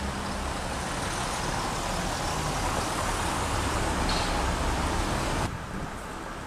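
Traffic noise from cars driving along a cobbled street: a steady rushing noise that swells, then cuts off abruptly about five and a half seconds in.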